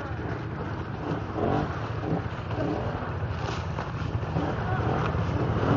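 ATV engine running steadily, a low drone that grows louder toward the end.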